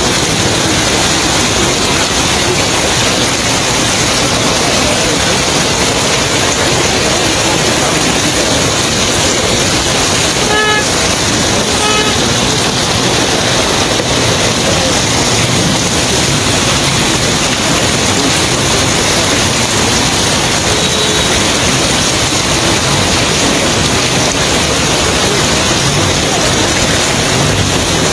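Steady, loud rushing noise, with a vehicle horn tooting twice, briefly, about eleven and twelve seconds in.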